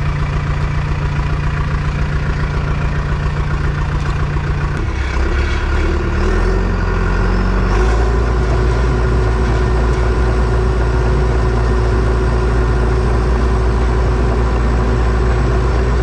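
Bulldozer's diesel engine running. About five seconds in its note shifts and it gets louder, and from about eight seconds in it runs steadily at the higher level.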